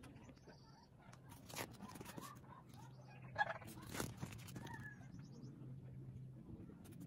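Photobook pages being turned and handled: soft, scattered paper rustles and flicks, with a sharper flick about three and a half seconds in.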